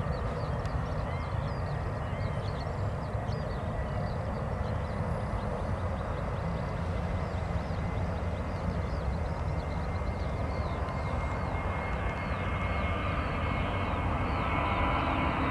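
Airliner engines running in the distance, a steady rumble with a thin high whine that grows louder over the last few seconds as the aircraft nears. Small birds chirp throughout.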